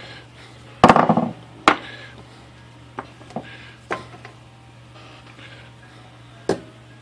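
Scattered metal-on-metal knocks from hammering a bent steel carriage end rail of a Royal 10 typewriter against a steel block to straighten it: a loud clank about a second in with a brief rattling ring, a sharp knock just after, a few light taps, and another sharp knock near the end.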